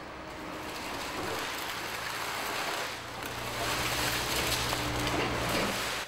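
Hydraulic machine bucket working a heap of scrapped circuit boards: a dense rattle of the scrap sliding and spilling over a steady low machine hum, growing louder about halfway through.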